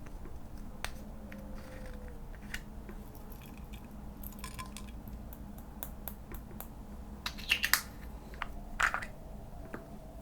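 Slime being handled: scattered small sticky clicks and pops, with a louder run of crackles about seven and a half seconds in and another near nine seconds.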